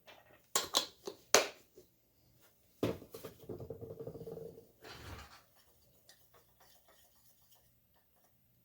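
Small paint bottles, cup and tools handled on a tabletop while thinned acrylic paint is mixed: four sharp clicks and knocks in the first second and a half, then a knock and about two seconds of rattling scraping.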